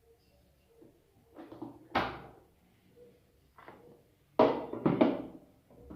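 A few dull knocks and thunks of kitchen containers and utensils being handled and set down, the loudest in a quick group of three near the end.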